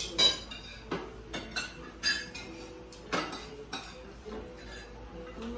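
Spoons and cutlery clinking against plates and bowls during a meal: a scatter of short, sharp clinks at irregular intervals, the loudest just after the start.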